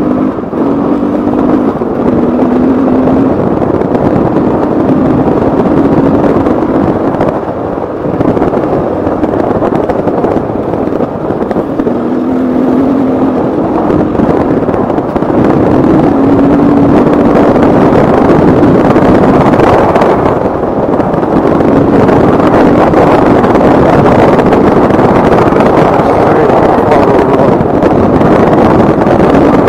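KTM 450 EXC single-cylinder four-stroke enduro engine running hard as the motorcycle is ridden along a dirt track, its pitch rising and falling with the throttle. It gets louder about halfway through and holds there.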